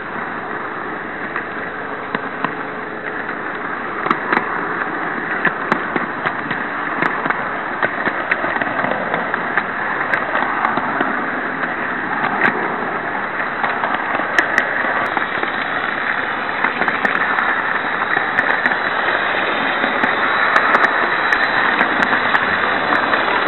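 Model train of Märklin coaches and a HAG Re 460 locomotive running on a layout, heard from on board. A steady rattling rumble of wheels on track, with many sharp clicks through it, grows a little louder in the second half.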